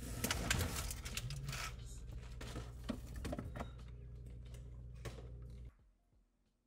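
Irregular clattering and clicking as items are shifted around in an open refrigerator and a plastic egg carton is handled, over a steady low hum. The sound cuts off abruptly to near silence near the end.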